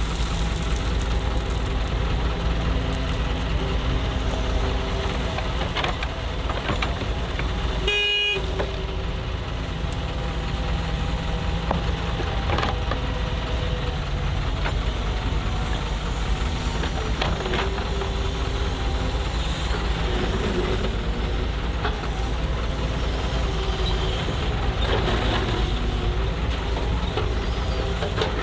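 Heavy diesel machinery running steadily: a wheeled excavator's engine and dump-truck engines at work, with a brief break in the sound about eight seconds in.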